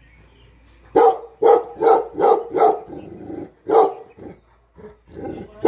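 Tibetan mastiff barking: after a quiet first second, a quick run of five barks, then single barks spaced further apart.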